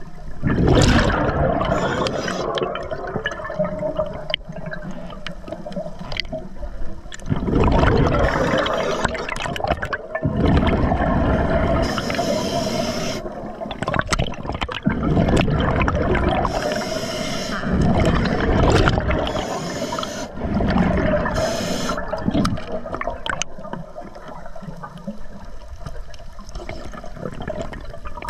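Scuba diver breathing underwater through an Atomic regulator: loud bubbling rushes of exhaled air every few seconds, with short hissing inhalations between them. Beneath them runs a steady hum from a Tusa diver propulsion scooter.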